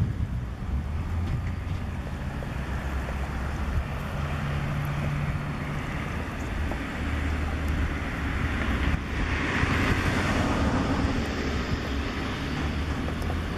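Low, steady engine-like rumble with wind on the microphone. A louder rush of noise comes about nine seconds in and eases off a couple of seconds later.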